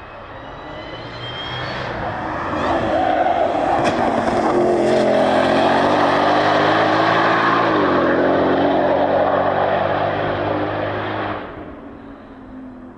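Ford Mustang GTD's supercharged 5.2-litre V8 at high revs as the car approaches and passes at speed. It gets louder over the first few seconds and its pitch drops about eight seconds in. The sound falls away quickly near the end.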